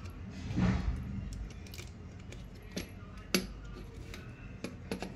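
A screwdriver and copper wire worked at a socket's terminal on a plastic switchboard: a rustling scrape about half a second in, then scattered sharp metallic clicks.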